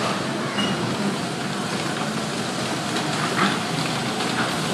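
Steady running noise of electric bumper cars rolling across the ride's metal floor, an even din with no clear tone.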